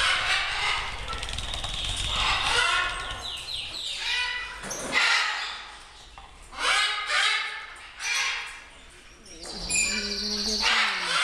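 Parakeet calling: repeated shrill, chattering calls in bursts of about a second with short pauses between them, starting with a brief flutter of wings.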